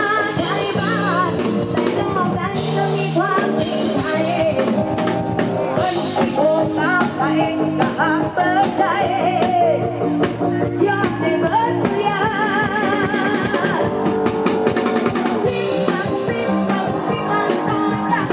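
Live band music played through a rot hae sound system: a steady drum-kit beat with guitar under a wavering, vibrato-laden melody line that includes singing.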